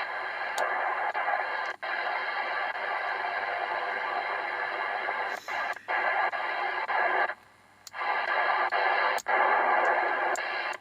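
Fanfare 190 DF CB radio's receiver hissing with static through its speaker, with faint steady tones in it. The hiss cuts out briefly several times and drops to near quiet for about half a second around seven seconds in.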